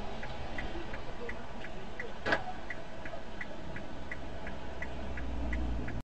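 Car turn-signal indicator ticking steadily, nearly three ticks a second, over a low engine and road rumble in the cabin. A single sharper click sounds a little past two seconds in, and everything cuts off abruptly at the end.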